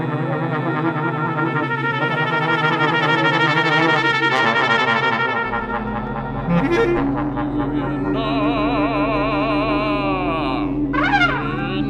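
Contemporary chamber music for trombone, bass clarinet and electronics: layered held tones with a regular wavering. A deep drone comes in about halfway through, and near the end a tone dips in pitch and rises back.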